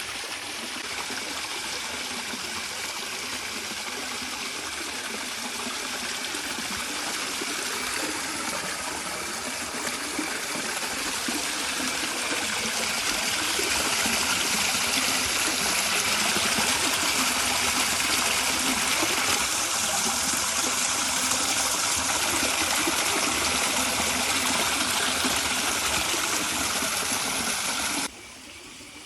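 River water flowing, a steady rush that grows louder about halfway through and cuts off abruptly about a second before the end.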